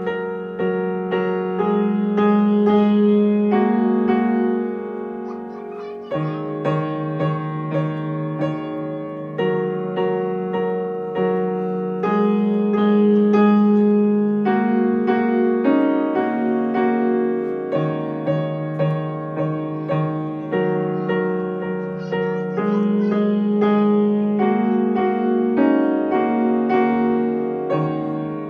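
Grand piano played by a child: a steady stream of evenly repeated notes over chords and bass notes that change every couple of seconds.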